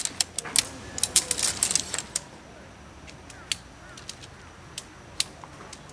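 A run of sharp clicks and knocks, thick in the first two seconds and then only now and then, over faint bird calls.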